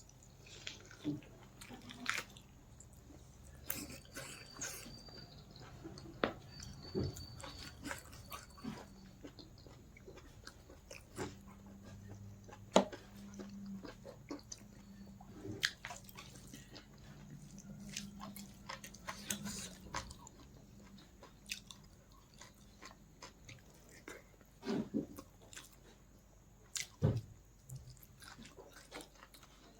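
A person chewing and biting food close to the microphone, with irregular wet clicks and smacks.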